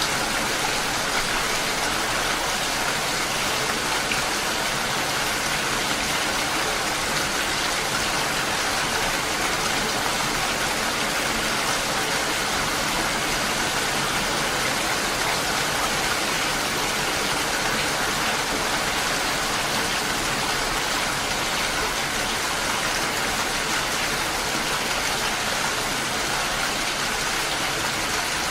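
Steady, even rain falling, a continuous hiss with no breaks or single distinct drops.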